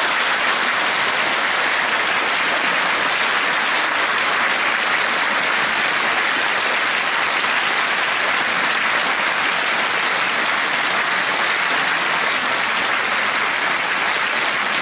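Concert audience applauding: dense, steady clapping that holds at one level throughout.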